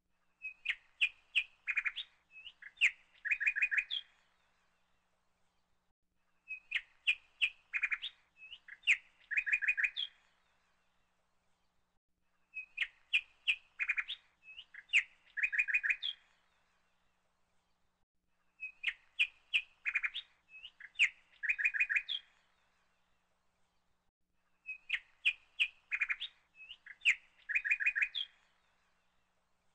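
Bird chirping: a phrase of quick chirps ending in a short trill, about three and a half seconds long, repeated identically every six seconds or so, five times over, as a looped birdsong recording.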